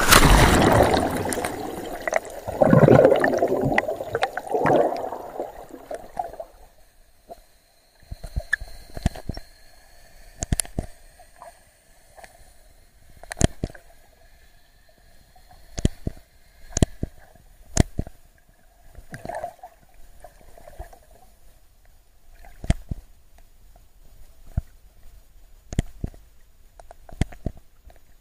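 A phone is plunged into seawater beside a boat, with loud splashing and rushing water for the first few seconds. Then comes muffled underwater sound: a faint steady hum and a dozen or so sharp knocks at irregular intervals.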